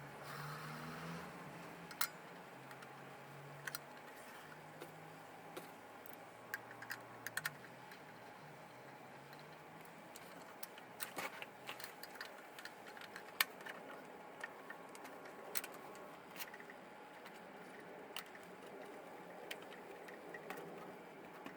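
Sparse, irregular light clicks and taps of small parts and tools being handled, over a faint low hum during the first half.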